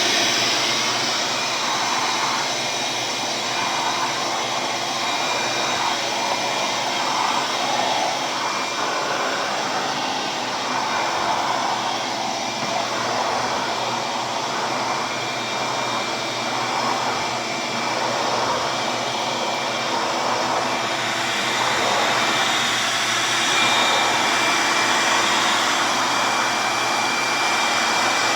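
Ridgid 12-gallon, 5.0 HP wet/dry shop vac running steadily while vacuuming. Its rushing air wavers, and a faint whistle comes in about two-thirds of the way through.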